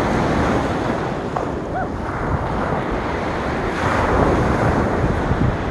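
Surf breaking on a sand beach, one wave louder about four seconds in, with wind buffeting the microphone.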